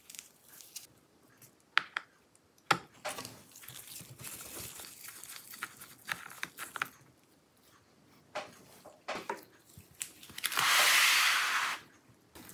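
Small sharp clicks and light scraping as a screwdriver works the battery screws inside an opened laptop, with gloved hands handling the chassis. Near the end comes a loud rush of noise lasting just over a second.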